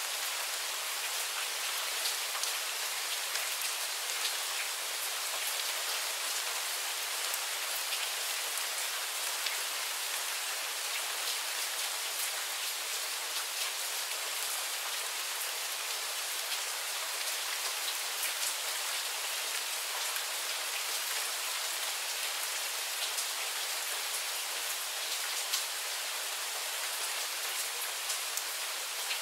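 Steady rain shower: a dense, even patter of raindrops, with single drops ticking sharper here and there.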